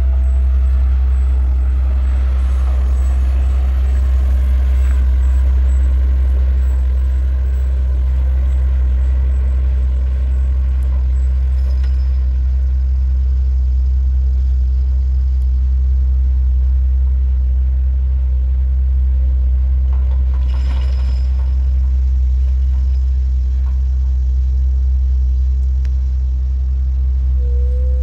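Steady low rumble of a Mack front-loader garbage truck with a McNeilus body and the surrounding traffic, heard while following it. A short air-brake hiss comes about three quarters of the way through, and a brief tone sounds near the end.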